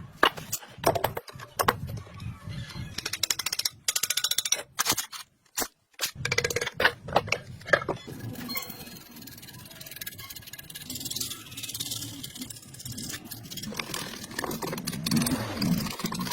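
Hand tools working on metal parts: a rapid run of sharp clinks and knocks, some in quick rattling series, giving way after about eight seconds to a steadier scraping, rattling noise.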